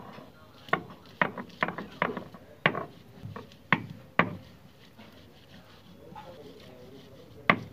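Stone batta crushing garlic cloves on a sil, a flat stone grinding slab: a run of sharp stone-on-stone knocks over the first four seconds or so as the muller is rocked down onto the garlic, then quieter grinding, and one sharp knock near the end.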